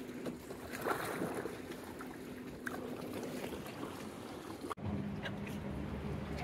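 Water lapping around a canoe on open water, with a few light knocks and splashes. An abrupt cut about three-quarters of the way through switches to a steady low hum with faint ticks.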